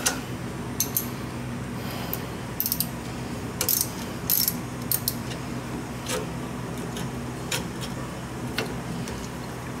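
Hands working a V-belt onto the metal pulleys of a Mercruiser 3.0 sterndrive engine: scattered light metallic clicks and clinks at uneven intervals, over a steady low hum.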